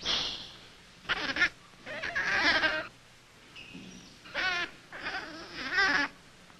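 Infant rhesus macaque calling: about five high, wavering calls, each under a second long, with short pauses between them.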